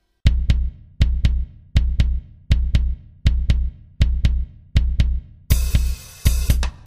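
Background music: a drum beat that starts a moment in, built on paired bass-drum hits about every three-quarters of a second, with cymbals and other instruments coming in loudly near the end.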